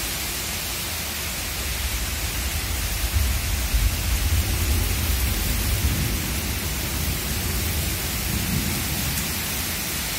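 Heavy rain pouring onto a flooded yard, a steady hiss. A low rumble swells in about two seconds in and fades out by about seven seconds.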